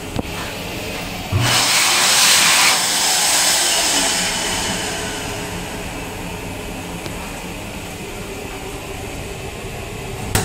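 Wall-mounted stainless-steel hand dryer blowing: a loud rush of air starts suddenly about a second and a half in and fades away over the next several seconds. Near the end a short tap sounds on a stainless-steel panel.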